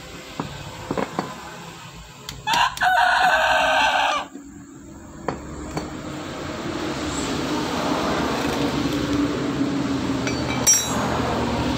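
A rooster crows once, about two and a half seconds in, the loudest sound here, lasting under two seconds. Around it come a few light metallic clicks of a hand tool on a starter motor's housing, and in the second half a low steady noise swells up.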